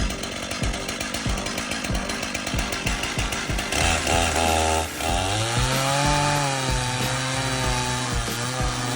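Stihl chainsaw fitted with a stump-grinding attachment, running hard and grinding into a tree stump; its engine pitch rises and falls from about four seconds in as the load changes.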